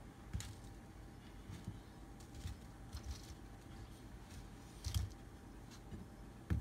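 Faint, scattered taps and clicks of food and utensils being handled on a serving board during plating, the sharpest one about five seconds in.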